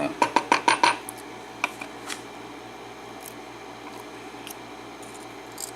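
Small metal lock parts, pins and springs, being handled and tapped on a work surface: a quick run of light clicks in the first second, then a few single clicks.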